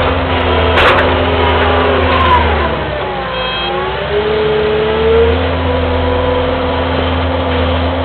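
Kubota skid steer's diesel engine running steadily, its pitch sagging around three seconds in and climbing back about two seconds later. A sharp click comes about a second in.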